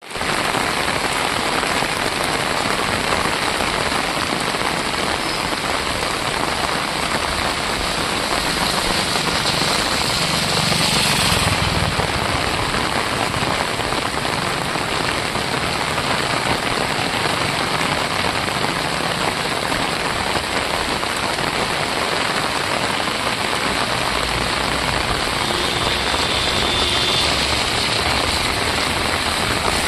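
Heavy rain falling steadily on streets and roofs, a dense, even hiss that swells briefly louder about ten seconds in.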